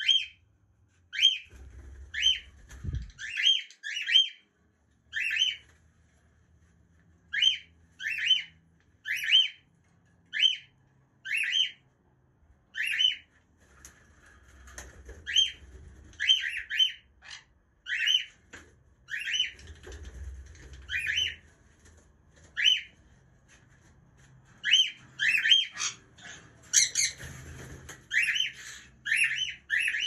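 Cockatiel calling: short, sharp repeated calls about once a second, with a denser, harsher run of squawking calls near the end.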